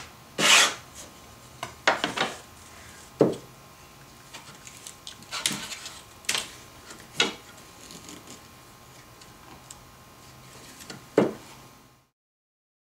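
Hand sanding block with sandpaper making one scratchy stroke along the edge of a wooden strip, then scattered wooden knocks and clicks as the block and pieces of wood are handled and set down on the bench.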